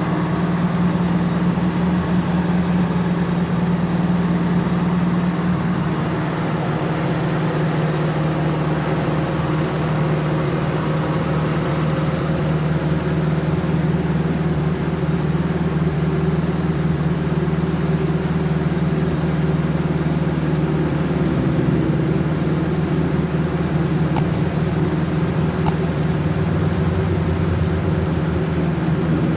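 1990 Toyota Corolla AE92's 4A-F 1.6-litre four-cylinder engine idling steadily, with two faint clicks near the end.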